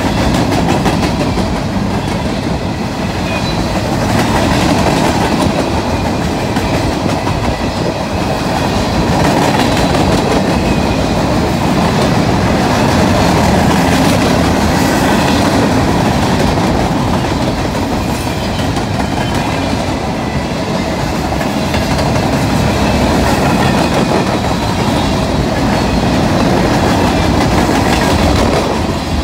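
Long freight train of steel gondola cars rolling steadily past, its wheels clattering on the rails.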